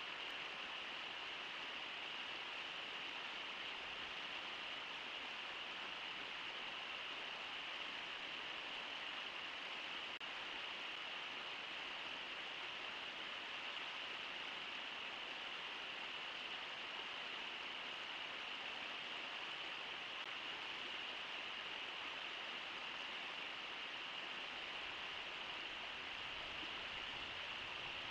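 Steady rushing of river water, an even hiss with no separate splashes or other events.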